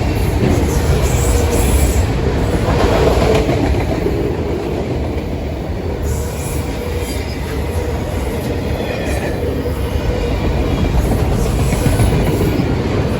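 Norfolk Southern autorack freight cars rolling past, a steady loud noise of steel wheels on the rail.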